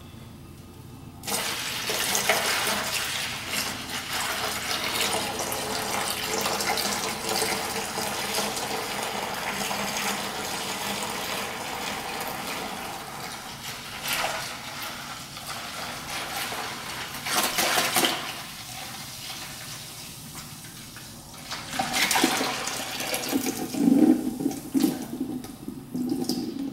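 Distilled water pouring from a plastic gallon jug into a plastic 5-gallon bucket along with coolant concentrate, mixing water-soluble flood coolant. The steady pouring starts about a second in, then turns patchier with a few louder splashes near the end.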